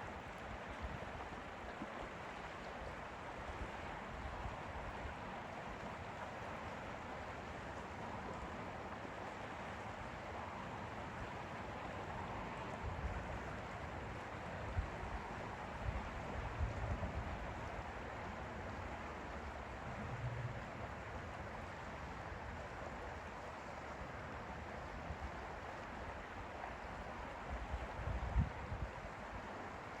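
Steady wash of lake water lapping and flowing, with wind buffeting the microphone in low rumbles now and then, strongest about halfway through and near the end.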